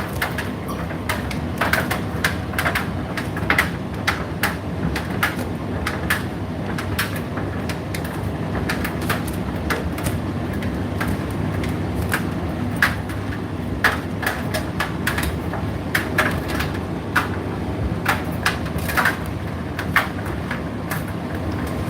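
Indesit IDC8T3 condenser tumble dryer running with its door open: a steady drum and fan rumble, broken by irregular sharp clicks and knocks about once or twice a second.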